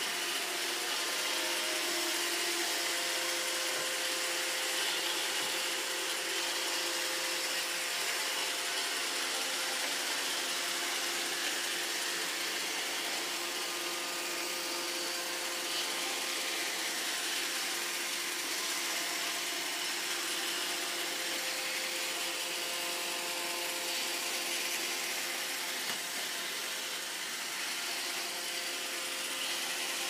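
iRobot Roomba robot vacuum running on a tile floor: a steady whirring hiss with a faint, even hum underneath.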